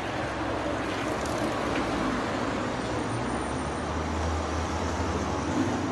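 Steady road traffic noise of a city street.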